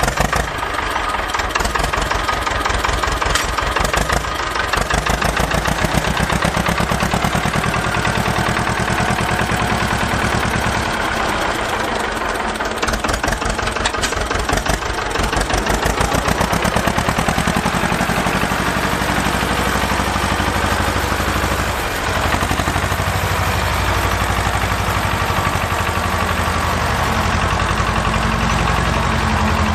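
Engine running with a steady, rapid chug that swells and eases a little in loudness, dipping briefly about two-thirds of the way through. The toys shown are motorless plastic push toys, so this is an added engine sound effect laid over the play.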